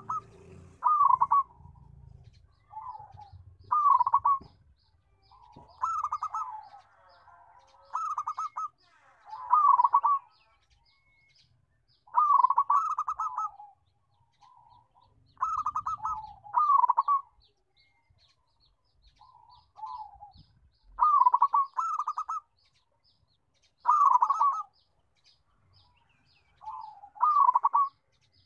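Zebra dove (perkutut) cooing: its staccato, rolling song phrases repeat about every two seconds, some in close pairs, with a few longer pauses between them.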